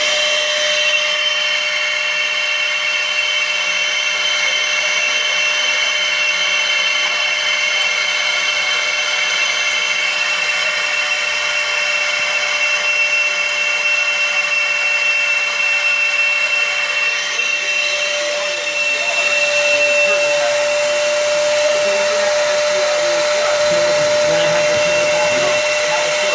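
Laser engraving machine running as it marks a steel gun receiver: a steady fan-like whir with high, steady whining tones, which shift briefly about two-thirds of the way through.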